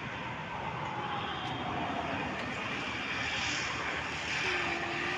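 Steady road-traffic noise with a siren's wail slowly falling in pitch over the first two seconds, and a short steady tone near the end.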